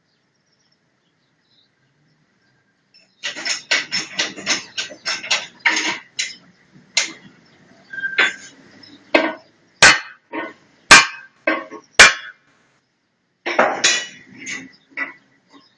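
Metal tools tapping and clinking, starting about three seconds in with a quick run of taps, then a few separate sharp, ringing strikes, three of them the loudest, and another short run of taps near the end.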